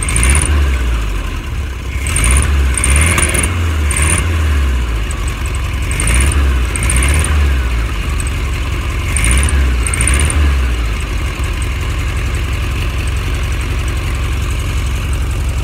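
1969 VW Beetle air-cooled flat-four engine running, its throttle opened by hand at the carburettor in four short revs, then left idling steadily for the last few seconds.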